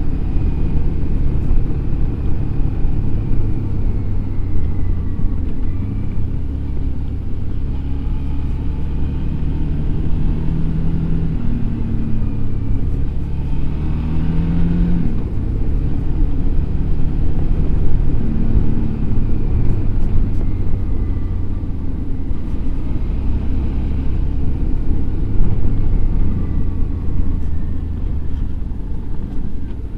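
Suzuki V-Strom 650 XT's 645 cc V-twin engine running on board while the motorcycle is ridden, its pitch rising a few times around the middle as the throttle is opened.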